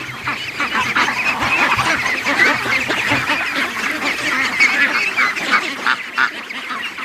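A large flock of domestic ducks calling steadily, with many quacks and chatters overlapping.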